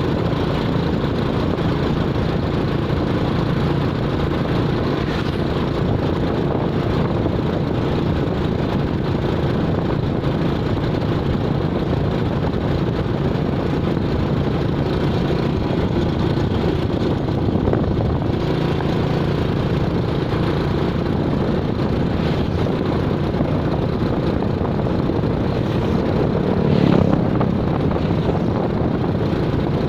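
A vehicle engine running steadily, with a brief louder swell near the end.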